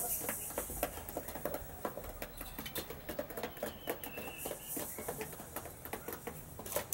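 Young chickens pecking grower feed from a dish: a rapid, irregular patter of small beak taps and clicks.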